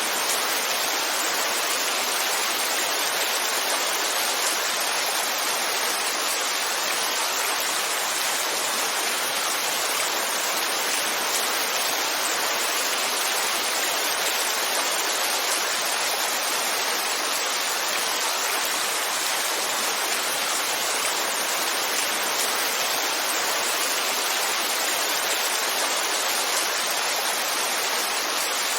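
Heavy rainfall: a dense, steady hiss of rain with no single drops or gusts standing out.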